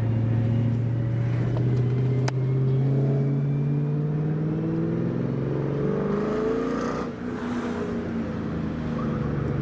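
Car engine running under way, then accelerating with its pitch climbing steadily for about four seconds before it drops away about seven seconds in and settles back to a steady drone.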